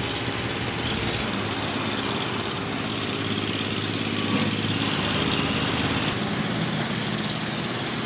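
Diesel engines of road-works machinery running steadily, growing a little louder and higher for a few seconds mid-way.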